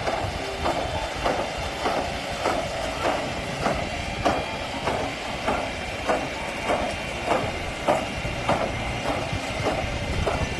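A machine running steadily with a low rumble and a regular clack, a little under two knocks a second.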